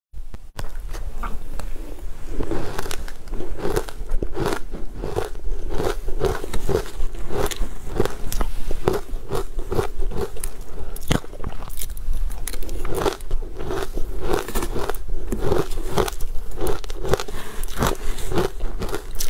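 Ice chunks coated in a sweet green powder being bitten and chewed close to a clip-on microphone: dense, continuous crunching with many sharp cracks.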